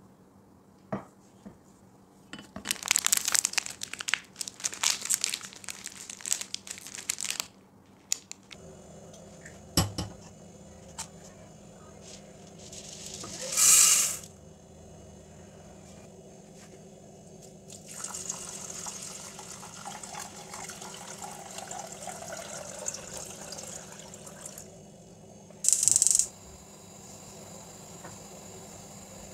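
Kitchen handling sounds. About two seconds in comes a few seconds of clicky rustling and clatter, then a knock. Later, dry brown lentils are poured into a stainless-steel pot in a brief loud rattling rush, followed by a longer stretch of pouring liquid and another short loud rush.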